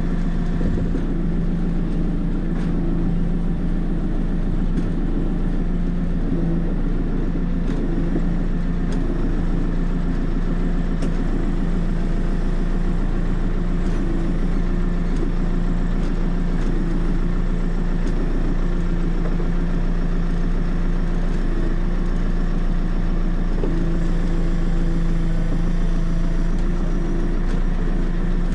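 JCB 3CX backhoe loader's diesel engine running steadily at a constant speed.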